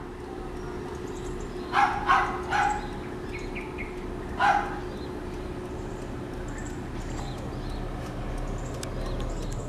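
A dog barks four times in short bursts, three in quick succession and one a couple of seconds later, over the low steady hum of the Proton Perdana's 2-litre V6 idling.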